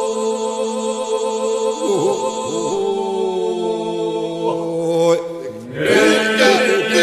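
Albanian Lab iso-polyphonic song sung unaccompanied by a male group: the group holds a steady drone (iso) while solo voices wind a melody above it. The voices drop briefly a little after five seconds, then a louder new phrase begins about six seconds in.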